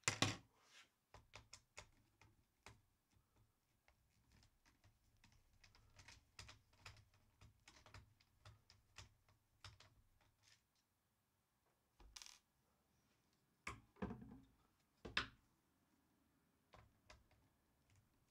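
Faint clicks and ticks of a screwdriver turning out the small screws in the plastic bottom case of a Lenovo IdeaPad 310 laptop, with a few louder knocks and clatters about two thirds of the way through.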